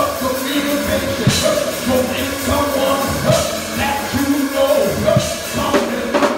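Live praise-band music with a drum kit played with sticks: kick drum and cymbals under held notes from the other instruments, with a sharp accent about every two seconds.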